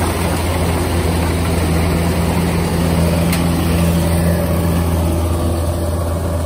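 Kubota DC-105X combine harvester running steadily as it cuts and threshes rice, a loud, even drone from its diesel engine and threshing gear, with one brief click about three seconds in.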